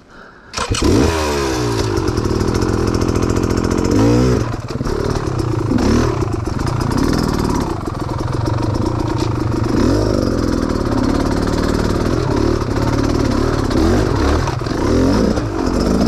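Off-road vehicle engine, likely a dirt bike, starting up loud about half a second in and then running, revving up and down again and again as it works over rough ground.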